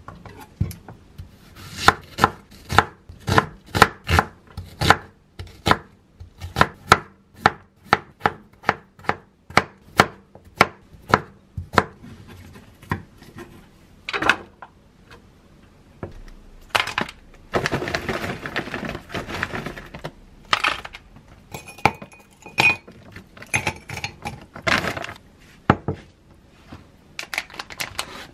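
Kitchen knife chopping potato on a wooden cutting board: a steady run of sharp cuts about two a second, then slower, scattered cuts with a few seconds of rougher scraping noise about two-thirds through.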